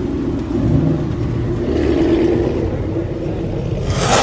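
A car engine rumbling loudly and revving up a little about half a second in and again around two seconds, with a short loud hissing burst near the end.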